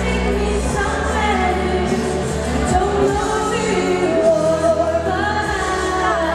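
A young woman singing a pop ballad live through a PA system over a backing track, her voice gliding and holding notes over a steady bass accompaniment.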